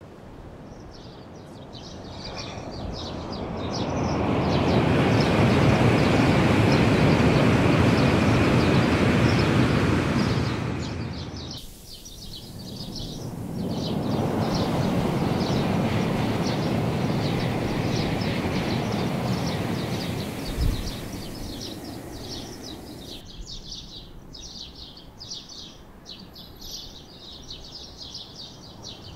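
Shinkansen bullet trains passing at speed, heard twice as a rushing noise that swells up and dies away, with a short low thump during the second pass. Birds chirp steadily throughout and are left almost alone near the end.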